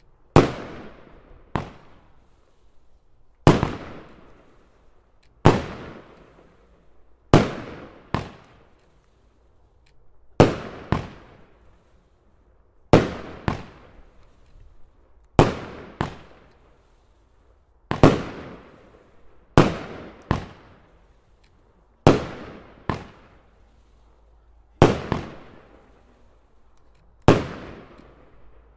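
Pyroland Bär & Bock 13-shot fireworks battery firing shot after shot, roughly every two to three seconds. The shells rise on silver tails and burst as blue peonies with a loud report. Many shots come as two sharp bangs less than a second apart, each fading out quickly.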